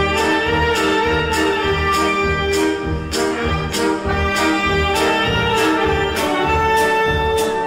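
Upbeat instrumental music led by brass, over a steady beat of about two hits a second.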